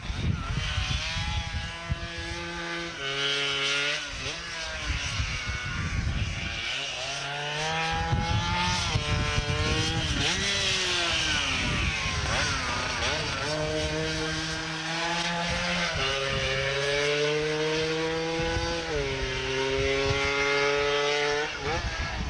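Racing scooter's two-stroke engine running hard uphill, its pitch holding steady, then dropping in sudden steps several times as the rider shifts up through the gears.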